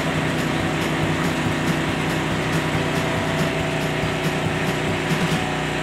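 Crane truck engine running steadily, a constant drone with no change in pitch.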